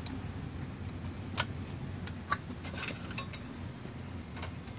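Plastic parts of an inkjet printer's carriage being handled and pushed into place: a handful of short, sharp clicks and light rattles spread through, over a steady low hum.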